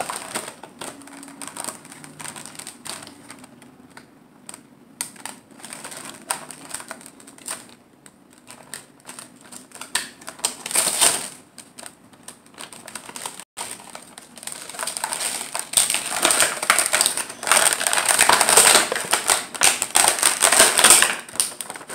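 Stiff clear plastic blister packaging of a toy pack being handled and pulled apart: scattered clicks and crackles, a short loud crackle about halfway, then denser and louder crackling through most of the last third.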